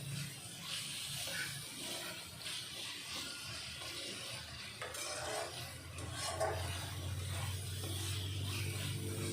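A spatula stirring and scraping sliced onions and spice paste as they sauté in a hot pan, with a light sizzle. A low steady hum comes in about two-thirds of the way through.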